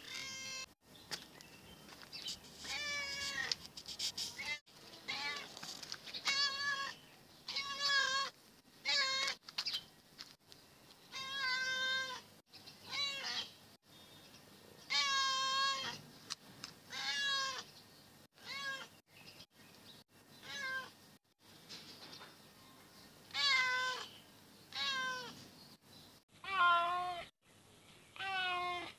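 Calico cat meowing over and over, a drawn-out meow every second or two with a few short pauses, many of the meows wavering in pitch.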